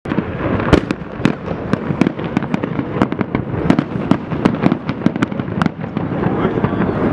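Fireworks display: a dense, continuous barrage of sharp bangs and booms over constant crackling.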